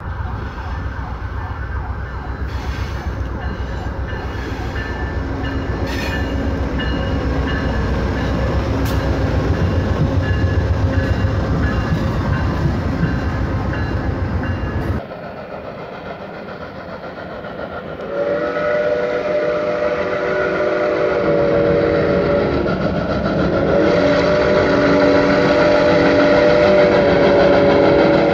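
An Amtrak passenger train passing, a steady rumble of wheels on rail that grows louder, then cuts off suddenly about halfway through. Later a steam locomotive's whistle blows two long blasts as the engine approaches a grade crossing.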